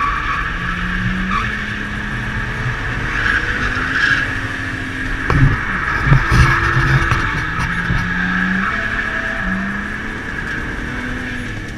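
BMW E36 325i's stock M50 straight-six heard from inside the cabin, its pitch rising and falling as the car is driven hard, with tyres squealing as the car slides. A few sharp knocks come about halfway through.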